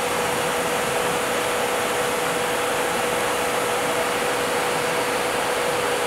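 2 HP variable-speed spindle motor of a Bridgeport EZ-Trak SX vertical milling machine running steadily, a constant hum-like tone over a broad even hiss.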